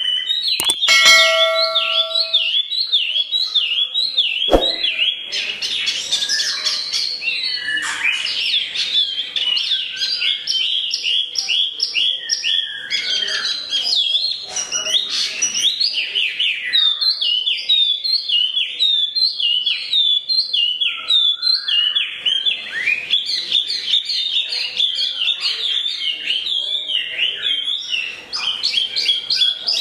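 A wambi mini songbird singing a continuous, fast stream of high chirps and trills, its song filled with canary-like phrases. A single sharp click comes about four seconds in.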